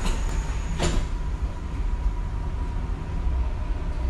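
Dubai Metro train running on elevated track, heard from inside the cab: a steady low rumble of the moving train, with one short knock about a second in and a faint steady whine after it.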